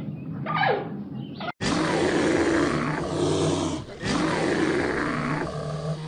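A brief falling animal call, then an abrupt cut about a second and a half in to a large animal roaring loudly in long calls, with a short break near the middle.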